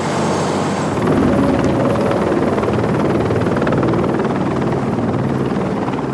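Helicopter in flight: a loud, steady rotor chop with engine noise.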